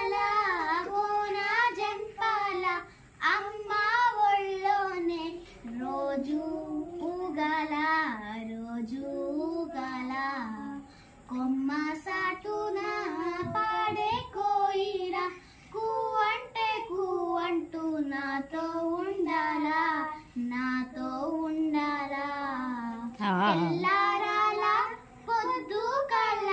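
Young girls singing a song unaccompanied, in melodic phrases broken by brief pauses for breath.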